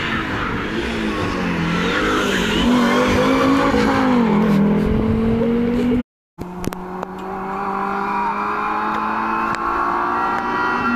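Rally car engine on a stage, its pitch rising and dropping repeatedly with gear changes and throttle lifts. About six seconds in the sound cuts out briefly, then a rally car engine is heard again, its pitch climbing steadily under acceleration.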